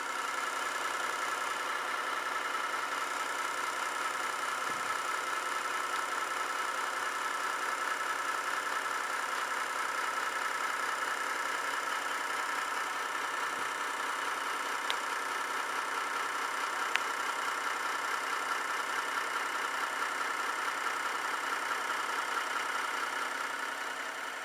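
Metal lathe taking a cut on a mixer bearing ring, running backwards with the cutting tool upside down: a steady machining whine with two faint ticks in the second half. It dies away near the end as the cut finishes.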